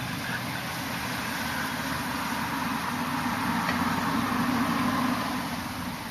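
A car driving past: steady engine and tyre noise that grows louder from about two seconds in and fades again near the end.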